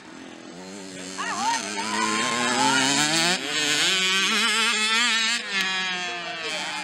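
Mini motocross bike engines revving, their pitch rising and falling as the riders work the throttle, with more than one bike heard at once. The sound swells about a second in and eases off after about five seconds.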